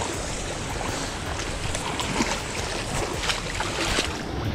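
Steady rush of creek water with a few short splashes scattered through it.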